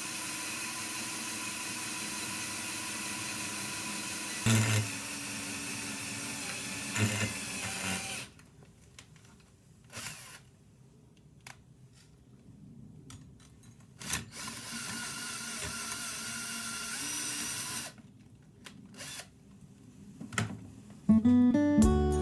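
A small electric power tool motor running steadily with a whine and a few knocks, stopping about eight seconds in; after that, light clicks and handling noise and a shorter stretch of running, with acoustic guitar music starting near the end.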